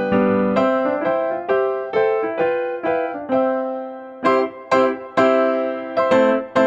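Background instrumental music: a slow tune of struck notes that ring and fade, about two a second.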